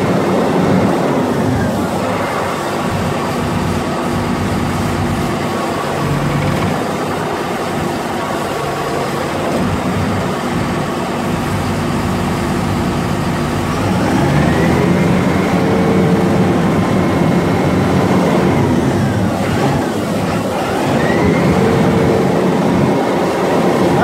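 Diesel engine of a Vögele Super 1800-2 crawler asphalt paver running steadily. The engine speed rises about halfway through, then dips and climbs again near the end.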